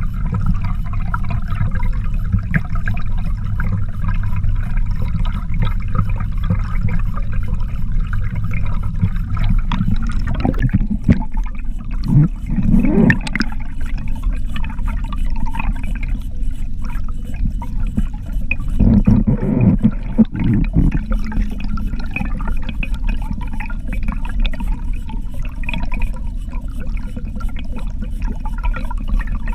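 Underwater sound of an Elgin God's Tooth dodger and kokanee spoon rig being trolled: a steady rush of water with a low rumble, and fast, even ticking throughout. The sound swells twice, about twelve and nineteen seconds in.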